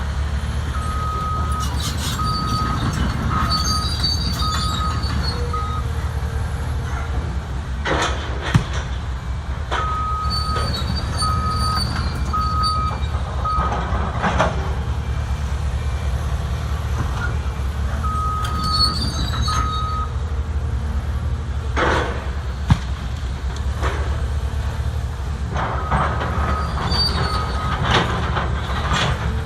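Heavy Caterpillar machine's diesel engine running steadily, with runs of an evenly spaced warning beeper sounding on and off. Two sharp single impacts, about nine and twenty-three seconds in, are the wrecking ball striking concrete.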